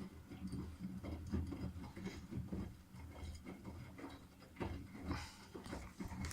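Miele Softtronic washing machine running a wash: an uneven low rumble with irregular clicks and splashes as the drum turns the wet laundry.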